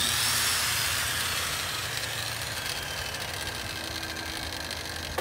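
Angle grinder spinning down after being switched off, its whine falling in pitch and fading over a couple of seconds, over a steady low hum.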